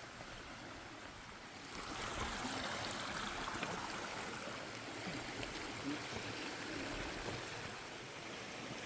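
Steady rush of mountain water from a stream, which grows louder about two seconds in.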